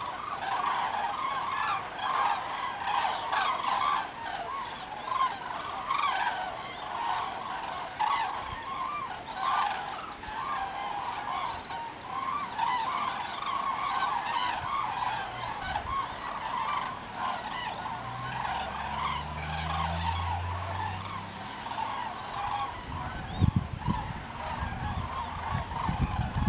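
A large flock of migrating common cranes calling overhead: a continuous chorus of many overlapping trumpeting calls.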